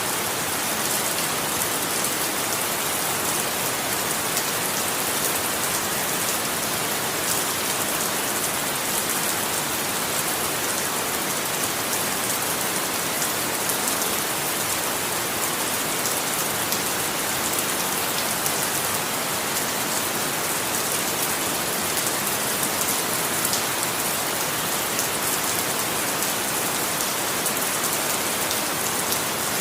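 Steady rain falling, an even hiss of many drops with fine patter in the high range, unchanging throughout.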